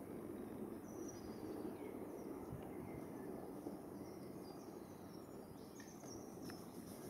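Faint outdoor woodland ambience: a steady low rushing background with a few brief, high bird chirps scattered through it, and a couple of faint ticks near the end.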